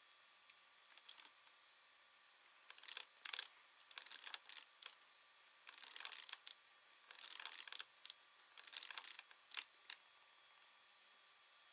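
Faint computer keyboard typing and mouse clicks, in several short runs of keystrokes.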